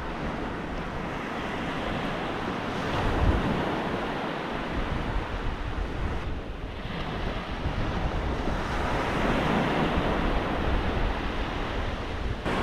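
Surf breaking and washing onto the beach, with wind rumbling on the microphone. The wash swells about three seconds in and again later on, with a brief lull in between.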